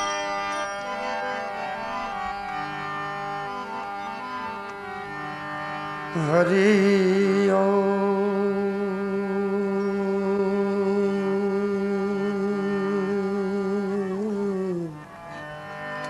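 Indian devotional bhajan music: a steady sustained instrumental drone, then about six seconds in a male voice takes up one long note with vibrato, held for some eight seconds and gliding down as it ends.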